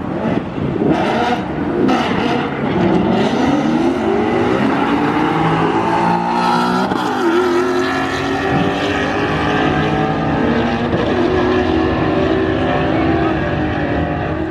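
Two drag-racing cars launching and accelerating hard down the strip, their engines climbing in pitch and dropping back several times as they shift through the gears.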